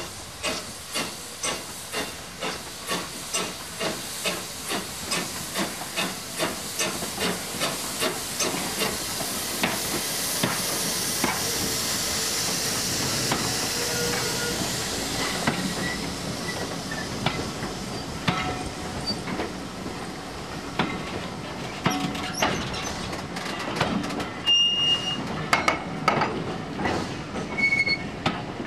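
A1X 'Terrier' 0-6-0 tank locomotive pulling away with a train of vintage wooden coaches: steady exhaust beats about two a second, then a loud hiss of steam around the middle. After that the coaches' wheels click over the rail joints, with short high wheel squeals near the end.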